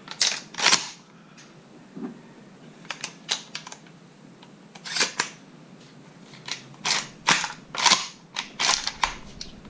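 Mossberg 500 12 gauge pump-action shotgun being loaded with snap caps: a dozen or so sharp metallic clicks and clacks in irregular groups.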